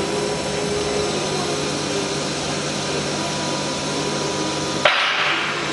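CNC router machinery running with a steady hum and faint whine. About five seconds in, a sudden burst of hiss comes in as the low hum drops away.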